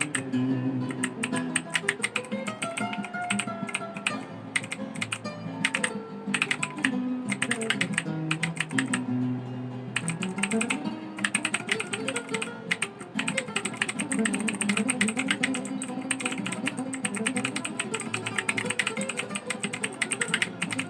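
Rakk ILIS mechanical keyboard being typed on: fast, continuous keystroke clacks, with background guitar music playing underneath.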